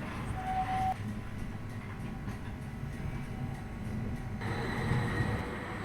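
Edinburgh tram running, a steady low rumble with a short beep about half a second in.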